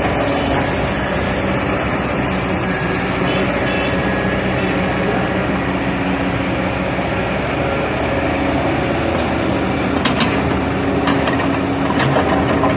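Diesel engine of a Kobelco SK220 excavator running steadily while it works. A few short knocks or clanks come near the end.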